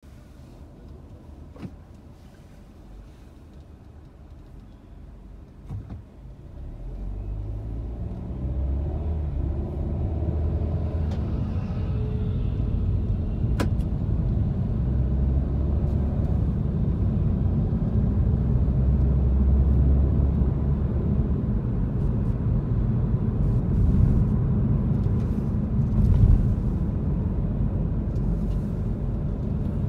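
Car interior: quiet while the car is stopped, then the low rumble of engine and tyres rises about six seconds in as the car pulls away, and it continues as the car drives on. A few light clicks.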